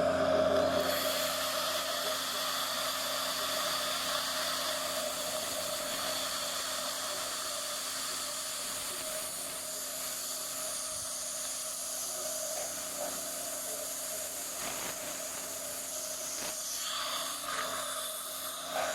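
Dental equipment running at the chair: a steady hiss with faint high whining tones over it, with a few small knocks and shifts near the end.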